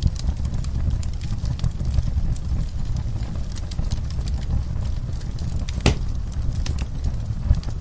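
Wood fire burning in a fireplace, crackling with scattered small pops over a steady low rumble, with one louder pop about six seconds in.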